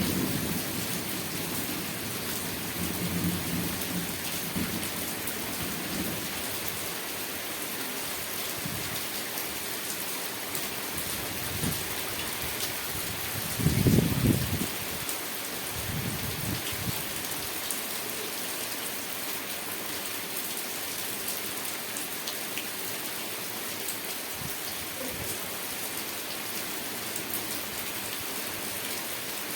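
Steady rain falling, a continuous hiss of drops, with low rumbles of thunder: one fading away in the first few seconds and a short, louder rumble about halfway through.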